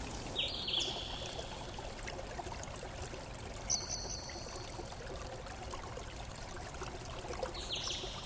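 Steady hiss in the background, with short high chirps that step up in pitch, heard about half a second in, near four seconds, and again near the end.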